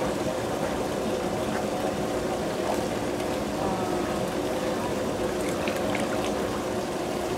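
Water splashing and trickling in a koi pond as a crowd of koi churn at the surface; a steady sound with a few small splashes.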